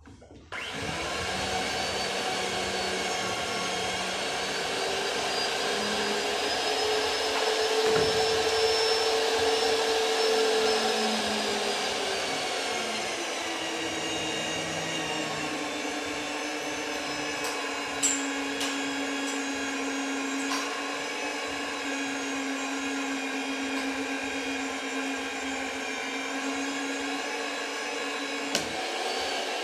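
Rothenberger electric pipe threading machine switched on and running steadily while threading a pipe. Its motor whine rises slightly, then drops and settles lower about halfway through, with a few light clicks near the end.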